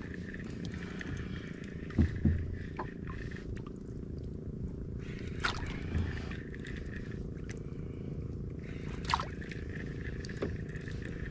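Small outrigger fishing boat's motor running steadily, with a few scattered knocks and clicks from gear in the boat.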